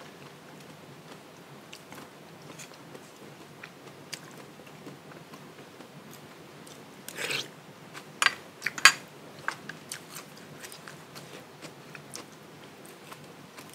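A person eating noodle soup: chewing and biting with many soft mouth clicks. Just past halfway there is a louder, brief noisy sound, followed by a few sharper clicks.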